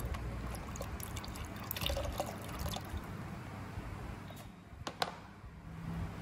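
Used engine oil pouring out of a motorcycle engine's drain hole into a drain pan as the drain plug is removed. A few metallic clicks come from the pliers and plug, the sharpest about five seconds in.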